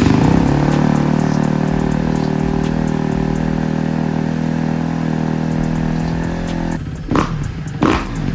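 Kawasaki KX250F's single-cylinder four-stroke engine running, settling from a rev into a steady idle, then blipped twice with the throttle near the end. The bike is running after a no-start fault was fixed.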